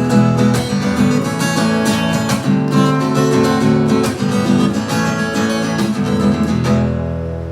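Acoustic guitar strummed in a steady rhythm, playing the instrumental opening of a song before the vocal comes in.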